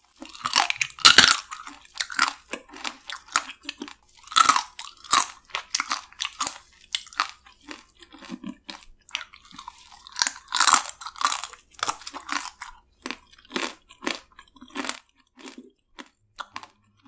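Biting, crunching and chewing spicy marinated crab (yangnyeom gejang), with many sharp, irregular crackles in quick clusters.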